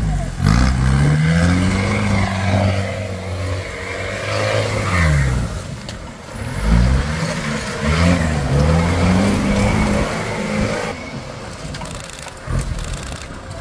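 Off-road jeep engine revving under load, its pitch rising and falling again and again as the throttle is worked.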